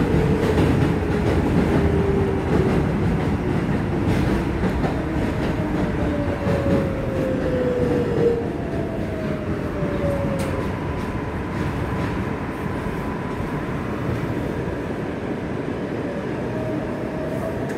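R142A subway train running on the rails, heard from inside the car: a steady rumble and clatter of wheels on track under an electric motor whine that falls in pitch several times as the train slows, then settles into a steady tone.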